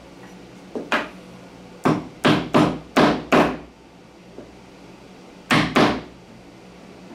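A wood chisel driven into a wooden piece by sharp blows on its handle: a pair of knocks about a second in, five in quick succession a little later, and two more near the end.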